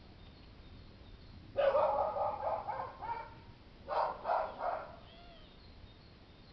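A dog barking off-screen in two quick runs of barks, the first starting about a second and a half in and the second near four seconds.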